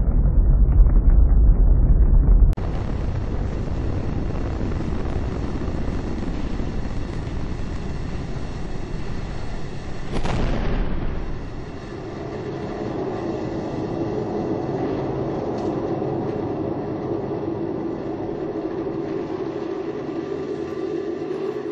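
Space Shuttle rocket noise: a deep launch rumble heard from the ground, then, after a sudden cut, the steady roar of ascent picked up by a camera on the external tank. About ten seconds in, a louder rush with a falling hiss comes at solid rocket booster separation, after which the roar settles slightly quieter and steadier.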